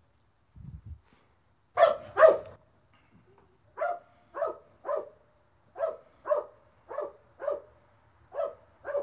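A dog barking in short, evenly spaced barks about half a second apart: two louder barks about two seconds in, then a run of about nine more. A brief low thump comes just before the first barks.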